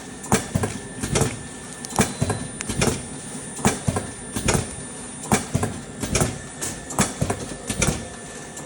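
Klockner Medipak EAS II automatic blister-packaging machine running through its cycle: a regular mechanical clacking, one loud clack about every second with smaller clicks and clatter between, over a steady running noise.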